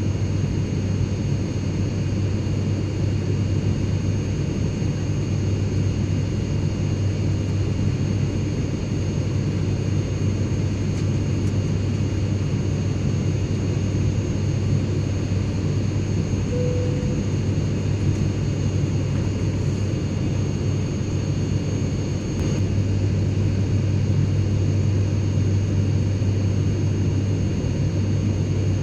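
Airplane cabin noise in flight: a steady drone of engines and rushing air with a strong low hum and faint steady high whines. The drone grows a little louder about three-quarters of the way through.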